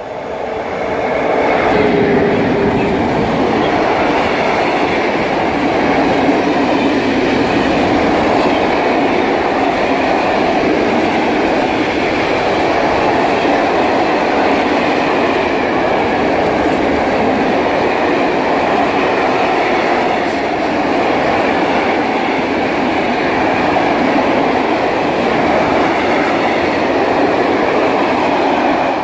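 ET22-class electric locomotive hauling a freight train of open-top wagons past. The sound swells over the first two seconds with a brief falling whine, then holds as a steady rumble and clatter of wagon wheels on the track.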